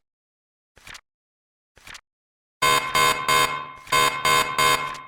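Countdown timer's soft ticks about once a second, then, about two and a half seconds in, its loud end-of-timer alarm starts: rapid electronic beeps in bursts of three or four, signalling that time is up.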